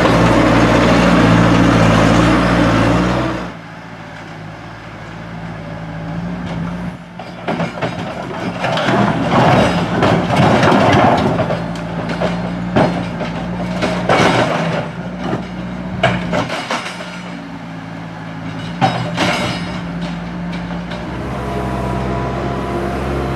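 Bobcat skid-steer loader's diesel engine running, loud and close for the first few seconds, then quieter under a long run of clanks and knocks, before coming up loud again near the end.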